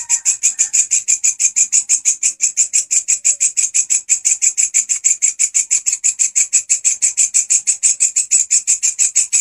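Walang kecek katydid singing: a loud, steady, rapid chirping of about six to seven pulses a second, unbroken throughout.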